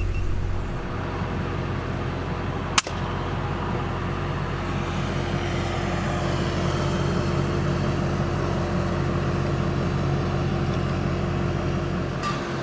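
A single sharp shot from a pre-charged pneumatic air rifle about three seconds in, over the steady hum of an idling vehicle engine.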